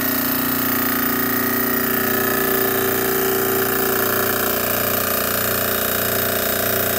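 Electric air compressor with a horizontal steel tank and motor mounted on top, running steadily with a loud, even motor hum and a low pulsing beat from the pump.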